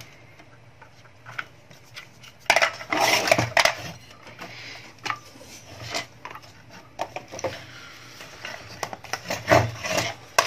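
Clattering and knocking as an inverter's circuit board and a plastic clamp meter are handled and set down on a tabletop, loudest about three seconds in and again just before the end.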